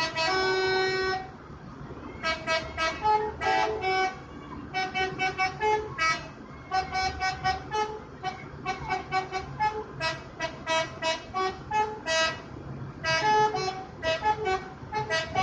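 Bus telolet horn, a multi-tone musical horn, playing a quick tune: one long note at the start, then runs of short toots at changing pitches.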